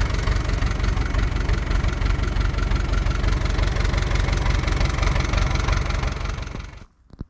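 Universal farm tractor's diesel engine running steadily, then cutting off abruptly near the end.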